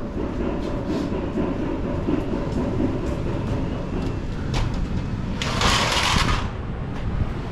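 Seaside wind and surf rumble on a fishing pier, with scattered light knocks and a short loud rush of hiss about five and a half seconds in.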